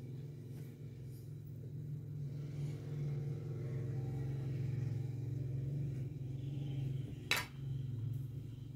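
A steady low hum that swells a little in the middle, with one sharp clink of a metal spoon against a plate about seven seconds in.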